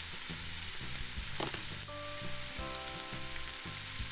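Frying sound effect: a steady sizzling hiss of sausages and steak cooking in a pan, with faint soft notes underneath.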